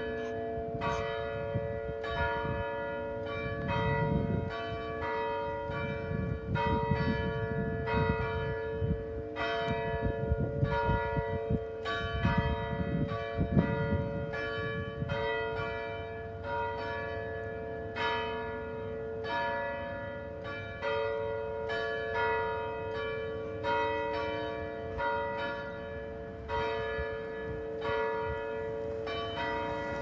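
Church bells pealing: several bells of different pitches swinging and striking in a continuous overlapping peal, about one to two strokes a second, with their hum lingering between strokes.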